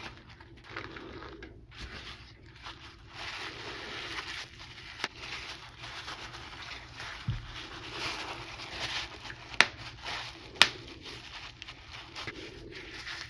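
Chalk-dusted plastic bubble wrap being crinkled and squeezed in the hands, with scattered small crackles. A sharp pop about five seconds in, and two louder pops about a second apart later on as bubbles burst.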